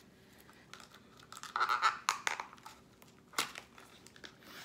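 Candle packaging being torn and crinkled open by hand. A run of crackles and snaps comes about a second and a half in, then one sharp snap near the end.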